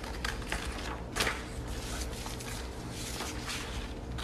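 Scissors cutting around a circle in a sheet of paper, with the paper rustling: a run of soft snips and crinkles, one louder about a second in.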